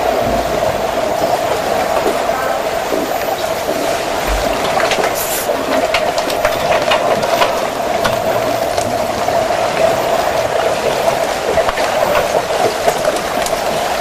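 Steady underwater rushing hiss of a swimming pool, with scattered small clicks and crackles from bubbles and players' movement in the water.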